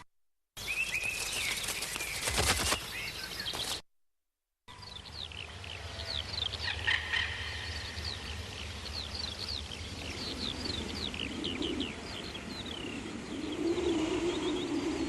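Birds chirping: many quick, high, falling calls in rapid succession, with a low steady hum coming in near the end. Before it, a short separate clip of noise with a burst of clicks, set off by brief silences.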